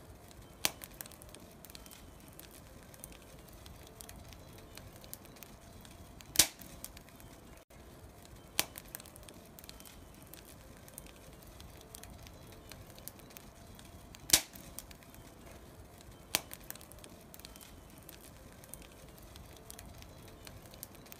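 Faint steady room noise with a handful of sharp, short knocks scattered through it, the loudest about six and fourteen seconds in.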